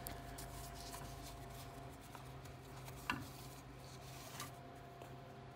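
Faint rustling and scraping of hands working braided synthetic winch rope toward its fairlead, with one light knock about three seconds in, over a steady faint hum.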